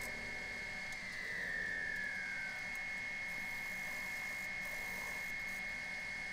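Wood lathe running with a large blank spinning, giving a steady high-pitched whine, while a turning tool works the face to cut a mortise. A second tone slides down in pitch between about one and two and a half seconds in.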